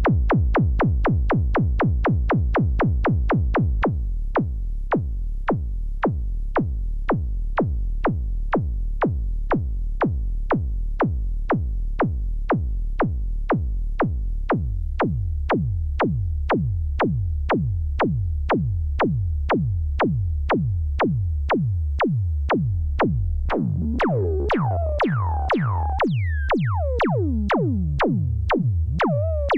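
Behringer Neutron analog synthesizer playing an electronic sequence: a steady pulse of short, sharp percussive hits over a repeating low bass. About three-quarters of the way in, resonant filter-swept tones with falling pitch glides join in.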